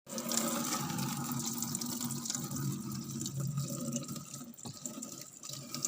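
Steady running water, with a low hum beneath it, easing off slightly after about four seconds.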